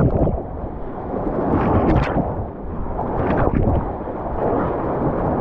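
Whitewater rapids rushing in a muffled, low roar around a kayak, with waves splashing over the boat and camera near the start, about two seconds in and again about three and a half seconds in.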